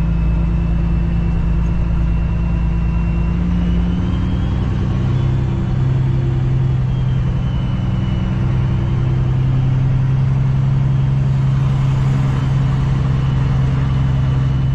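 Cummins ISX diesel engine of a Kenworth W900L heard from inside the cab as the truck drives off. The engine note drops about four seconds in, then holds steady, with a faint high whine rising and falling above it.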